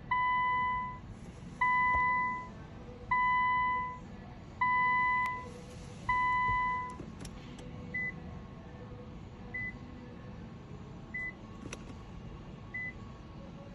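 Electronic warning chime in a 2017 Infiniti Q50: five steady, evenly spaced tones of about a second each, then four short, higher beeps at the same pace. A few faint clicks fall between them.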